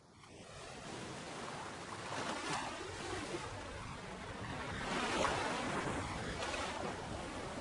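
Sea waves washing onto a beach, with wind, fading in from silence over the first second; the surf swells louder twice, about two and a half and five seconds in.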